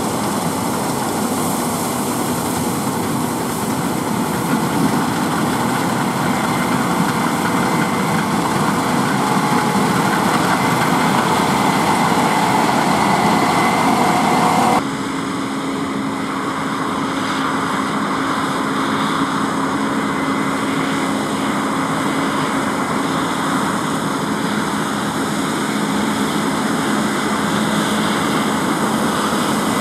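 Case IH Axial-Flow combine harvester running under load while cutting and threshing oilseed rape: a steady, loud engine and machinery drone. The sound changes abruptly about halfway through, to a slightly quieter, steadier drone from a combine passing close by.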